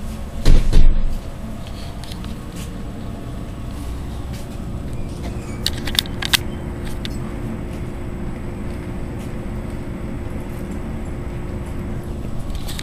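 Steady low mechanical hum of a soda vending machine, likely its refrigeration unit. There is a loud thump about half a second in and a few sharp clicks around six seconds in, as the machine's price display shows 1.50.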